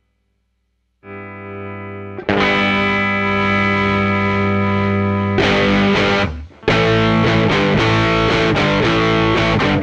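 Overdriven electric guitar played through a Fairfield Circuitry Long Life parametric EQ pedal, with its Tilt EQ setting being demonstrated. After about a second of silence a softer chord sounds, then a loud sustained chord rings from about two seconds in. The tone turns much brighter about halfway, and after a brief break the guitar plays rhythmic chords.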